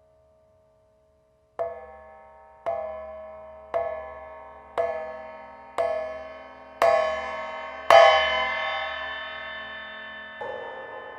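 Bell-like percussion struck seven times at about one stroke a second. Each stroke rings on with several steady tones and fades, and the last two are loudest and ring longest. A softer strike with a different ring follows near the end.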